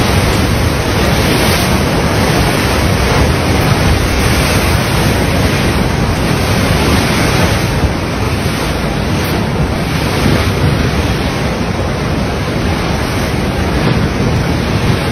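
Large waves breaking and surging against a promenade wall: a continuous loud wash of surf with swells rising and falling, and wind buffeting the microphone.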